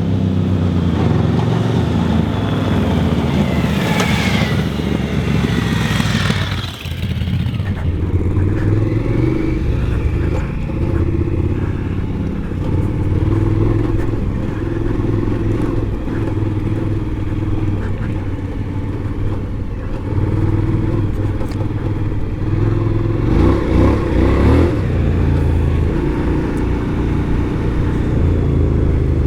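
Twin-cylinder adventure motorcycle engine running as the bike is ridden off-road, its note rising and falling with the throttle. The engine dips briefly about seven seconds in.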